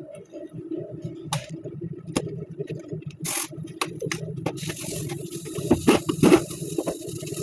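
A few sharp metallic clicks and knocks of hand tools. From about four and a half seconds in comes a steady hiss of compressed air from a pneumatic tool on an air hose, held against a truck's front wheel hub.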